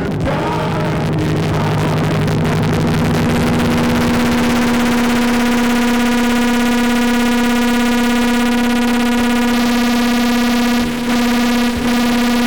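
Loud electronic noise from no-input mixer feedback run through effects pedals. A harsh, dense wash settles after about two seconds into a steady buzzing drone rich in overtones, which cuts out briefly twice near the end.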